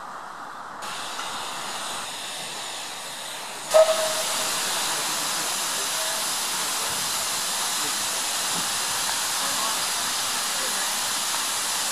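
Steam hissing steadily from a small LNER Class Y7 0-4-0 tank engine standing in the yard. The hiss starts abruptly about four seconds in with a brief loud burst; before that, only faint outdoor ambience.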